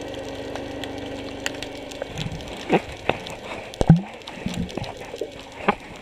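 A steady motor hum that stops about two seconds in, followed by water sounds and several sharp knocks, the loudest about four seconds in.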